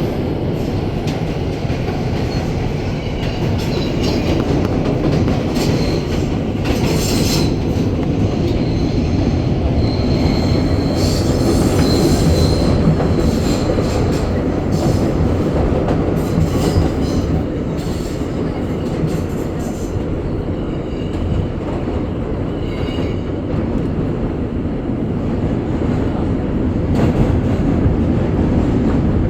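Riding inside an R160 subway car: a steady rumble of wheels on the track, with high wheel squeals that come and go several times, strongest in the first half.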